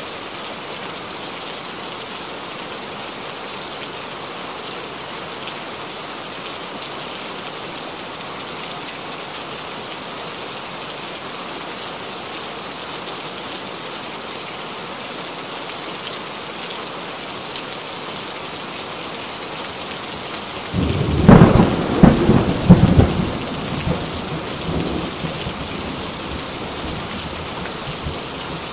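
Heavy rain falling steadily. About two-thirds of the way through, a sudden crackling clap of thunder rumbles for a few seconds and then fades back into the rain.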